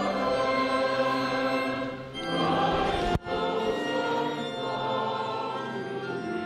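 Choir singing with long held notes, with a brief dropout in the sound about three seconds in.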